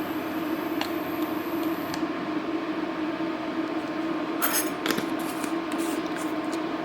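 A steady low hum with a light hiss under it, and a few short clinks about four and a half to five seconds in: a spoon against a frying pan as ground spices go into warming olive oil.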